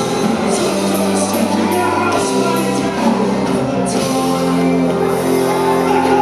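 Live rock band playing loudly: electric guitars, bass guitar and drum kit, with repeated cymbal crashes over the first four seconds.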